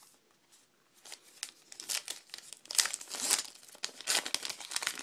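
A 2012 Topps Gypsy Queen card pack's wrapper crinkling and tearing as it is opened by hand, starting about a second in.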